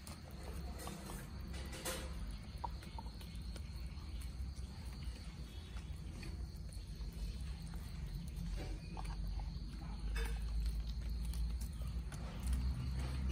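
Chickens pecking food off stony ground: irregular quick taps and scratches of beaks and feet, over a steady low rumble.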